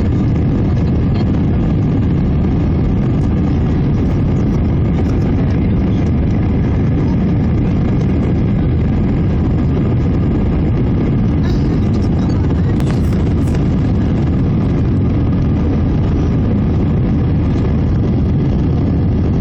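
Steady low rumble of an Airbus A319's jet engines and airflow, heard inside the passenger cabin from a window seat over the wing as the plane climbs out after takeoff.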